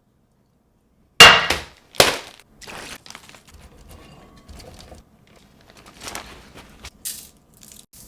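Kitchen clatter: two sharp clanks, about a second in and again a moment later, the first with a brief ring, followed by fainter knocks and handling noises.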